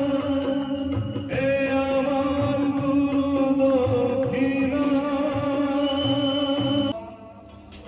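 Music with sustained droning notes over a pulsing low beat, dropping away suddenly about seven seconds in.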